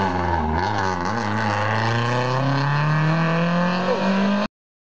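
Rally car's engine accelerating hard away from a hairpin, with a brief dip in revs near the start and then one long, steady climb in pitch as it pulls up the road. The sound cuts off abruptly about half a second before the end.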